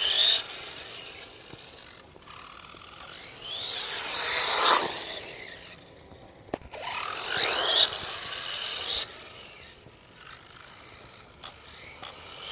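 RC buggy's electric motor and drivetrain whining up in pitch and back down as it accelerates hard, twice, peaking around five and eight seconds in.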